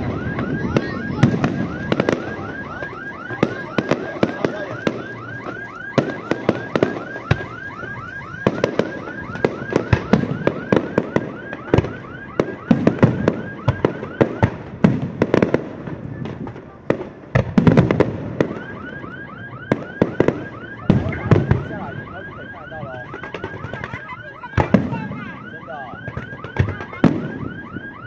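Aerial fireworks shells bursting with loud bangs, the loudest hits clustered past the middle. Under them a car alarm sounds a rapid repeating warble that starts about two seconds in, stops for a couple of seconds past the middle, then starts again.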